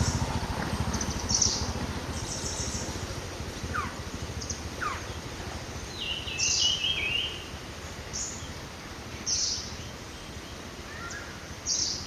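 Forest birds calling: short high chirps about every second or two, two quick falling whistles near the middle, and a stepped, warbling call about six seconds in. A low rumble underneath is loudest in the first few seconds and then fades.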